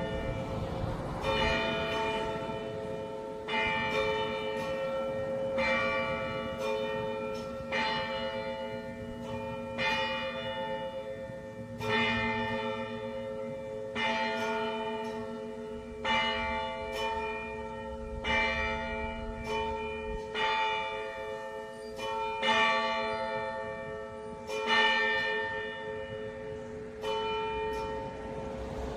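A single church bell rung over and over, about one stroke every two seconds. Each stroke rings on into the next, so its deep hum never dies away between strokes.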